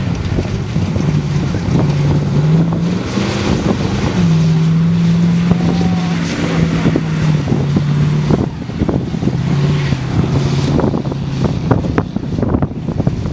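Early-1950s Ford F-1 pickup's engine running at low revs as the truck crawls through mud, its note stepping up and down slightly with the throttle. Wind buffets the microphone throughout.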